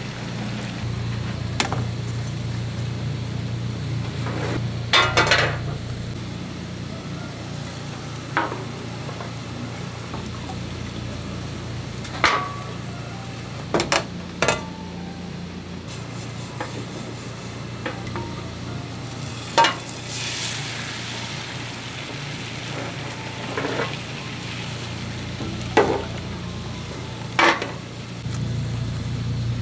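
Thin egg sheets cooking in a rectangular metal tamagoyaki pan over a gas burner: a brief sizzle a little past the middle. Sharp clacks of the pan and utensils every few seconds are the loudest sounds, over a steady low hum.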